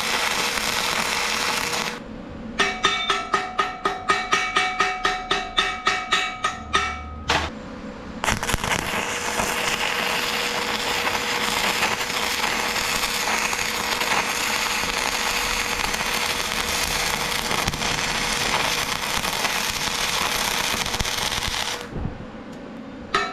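Electric welding arc crackling steadily on steel. About two seconds in it gives way to a quick, even run of ringing hammer blows on steel, three or four a second, for about five seconds. Then the arc crackle resumes for most of the rest.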